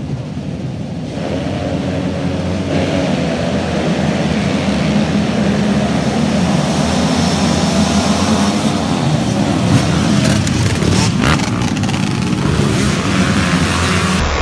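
Grasstrack racing motorcycles' engines running hard, growing louder over the first few seconds as the bikes come nearer.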